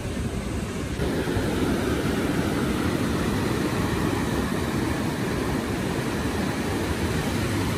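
Sea waves washing over sand and rocks, with wind on the microphone: a steady rushing noise that grows a little louder about a second in.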